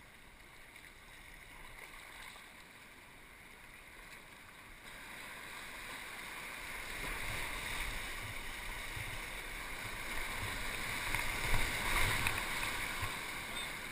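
Rushing whitewater of a class IV+ rapid, faint at first and growing steadily louder as a kayak runs into it, with heavy splashing over the boat about twelve seconds in.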